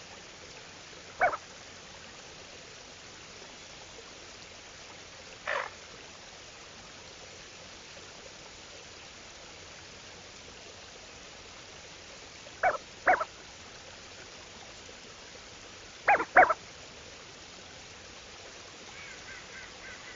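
Lesser scaup calling: six short calls, singly and then in two quick pairs, over a steady background hiss of open water.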